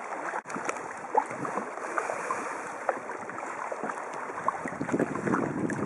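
Kayak paddles dipping into calm water: small splashes and drips from the blades over a steady wash of water, growing louder near the end.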